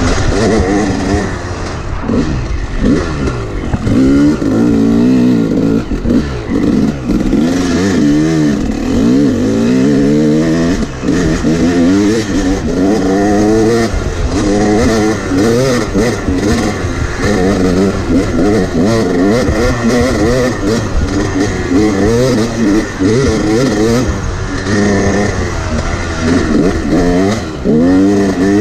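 Yamaha YZ250X two-stroke dirt bike engine being ridden hard, revving up and dropping back over and over, its pitch rising and falling about every second or two with the throttle and gear changes.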